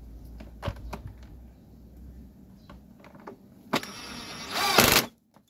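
Hands handling the plastic casing of a Panasonic IH rice cooker: a few light clicks early on over a low hum, then a rough plastic scraping and rubbing about four seconds in, the loudest part, which stops abruptly near the end.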